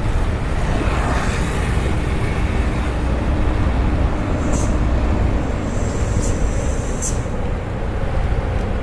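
Road traffic noise under a heavy low rumble from wind on the microphone, with a broad swell about a second in and three short high clicks in the second half.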